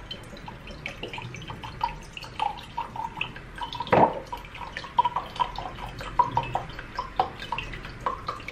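Silver Swan vinegar pouring from a plastic bottle into a small glass jar, trickling and splashing in small irregular drips, with one louder glug about four seconds in.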